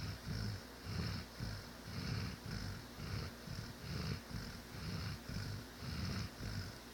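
Dog snoring rapidly in deep sleep, about two snores a second in an even rhythm.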